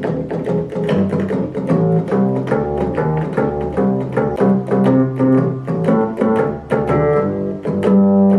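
Alesis Recital digital keyboard being played to show one of its voices: a quick run of notes over lower held notes in the bass.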